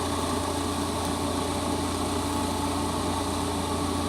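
Steady low mechanical hum with a constant tone, like an idling engine running.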